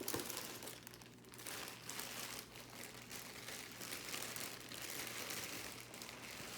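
Irregular crinkling and rustling of packaging as a pair of fight shorts is lifted out and handled, with a faint steady low hum underneath.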